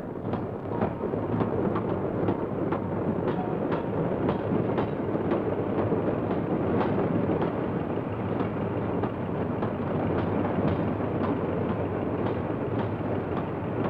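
Train running on the rails: a steady rumble with a quick, uneven clatter of wheels over the rail joints, about two or three clicks a second.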